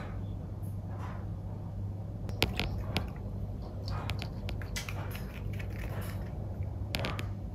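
Maltipoo puppy eating at its bowl: a run of quick, crunchy mouth clicks and bites, with a few more near the end.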